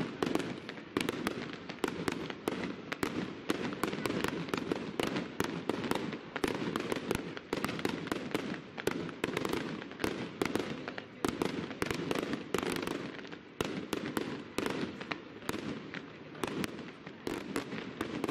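Fireworks display: aerial shells and rockets bursting overhead in quick succession, several sharp bangs a second without a break.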